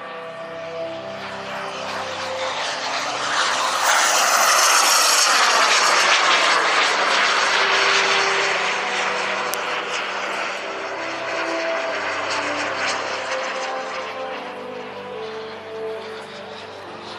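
JetCat P-180Rxi turbines of a pair of quarter-scale Aero L-39 Albatros model jets flying past: the turbine whine swells to its loudest about four to eight seconds in, falling in pitch as the jets pass, then fades.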